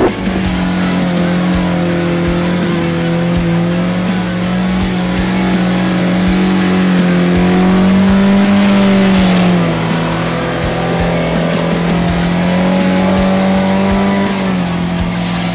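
A 4x4 SUV's engine pulling at steady revs as it drives through muddy ruts. The pitch rises a little about eight seconds in, drops just before ten seconds, and drops again near the end.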